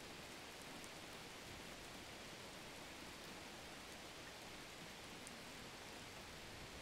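Faint, steady hiss with no distinct events.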